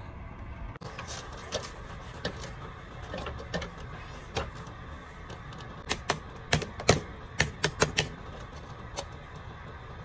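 Sharp knocks and taps of ice being chipped and knocked out of frozen PVC furnace exhaust and intake vent pipes: a few scattered at first, then a quick run of about eight. A steady low rumble runs underneath.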